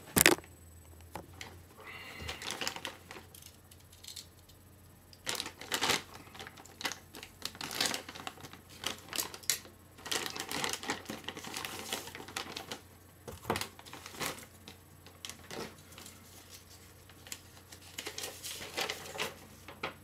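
Paper and plastic packaging being handled and unwrapped, rustling and crinkling in short irregular bursts with sharp clicks. One loud click comes right at the start.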